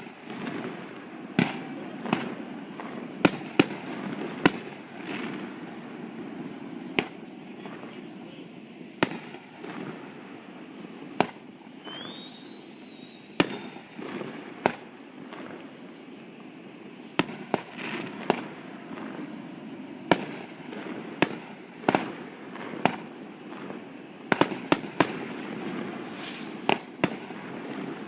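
Aerial fireworks going off: a long run of sharp bangs at irregular intervals, some coming in quick clusters of two or three.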